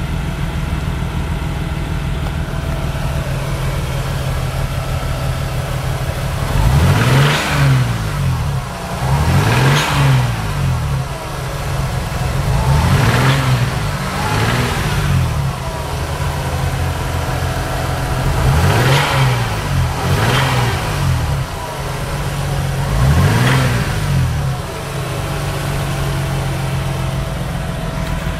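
Toyota 2JZ-GTE twin-turbo straight-six idling, then blipped up and back down about seven times before settling to idle again. The engine knocks: the ring lands on its pistons have crumbled, giving heavy blow-by.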